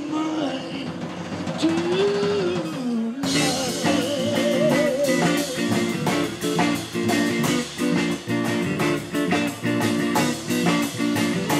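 Live band music with upright double bass, electric guitar and drums, and a male voice singing. The opening seconds hold sliding sustained notes, then about three seconds in the full band kicks in with a steady drum beat.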